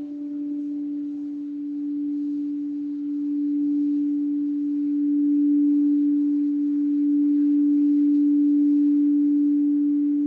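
Crystal singing bowl sounding one steady, nearly pure low tone that swells slowly louder and softer.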